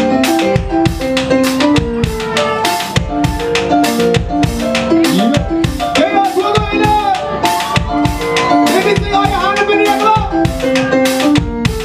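Live band playing: a drum kit keeps a steady beat under bass guitar and keyboard chords, and a sliding vocal melody comes in about halfway through.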